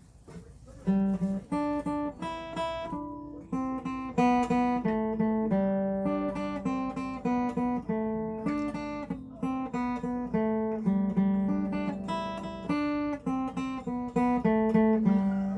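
Acoustic guitar music: single notes plucked one after another, picking out a melody that starts about a second in.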